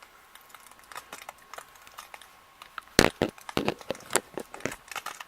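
Ice pellets of an ice storm ticking and clicking in irregular sharp taps, with a louder flurry of clicks about three seconds in.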